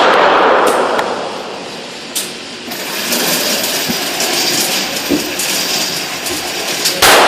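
A Ruger SR40 .40 S&W pistol fired, one loud shot about seven seconds in. Before it, the drawn-out echo and noise of the previous shot, which had just been fired, slowly fade.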